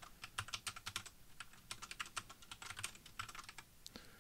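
Typing on a computer keyboard: short bursts of quick keystrokes with brief pauses between them.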